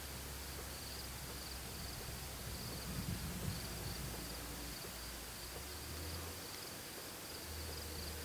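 Insects chirping in a steady, pulsing high trill, over a low hum and a faint hiss.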